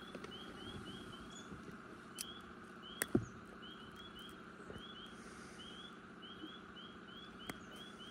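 A few sharp clicks and knocks from handling a walleye and its hook in a landing net, the loudest about three seconds in. Behind them is a faint, steady chorus of short rising peeps, often in pairs, from small animals calling.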